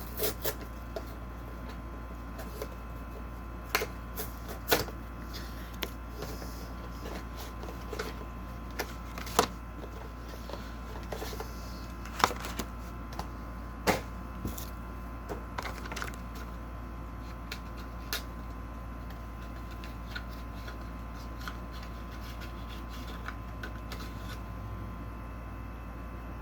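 Pokémon trading cards and their cardboard packaging being handled: irregular clicks, taps and light rustles, a few sharper ones, over a steady low hum.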